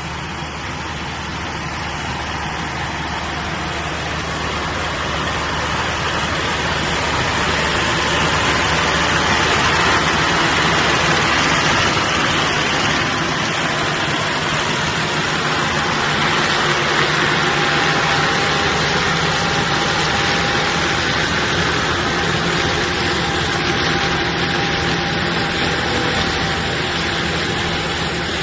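Tractor engine and tow-behind straw picking, crushing and baling machine running steadily, a dense mechanical noise over a low engine hum, growing louder over the first ten seconds and then holding level.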